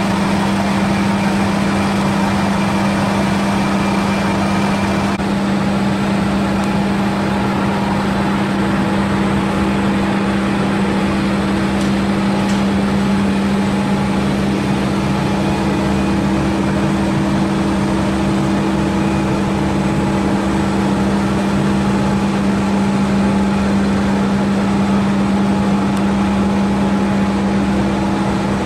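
Machinery of a biomass producer-gas (gasifier) plant running steadily: a loud, even mechanical hum with a strong low drone and a hiss of noise over it.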